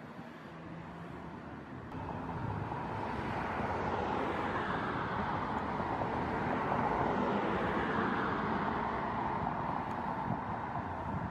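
Outdoor vehicle noise, like a vehicle passing on a road: a steady rushing that swells over several seconds, peaks past the middle with a slight drop in pitch, and eases a little near the end.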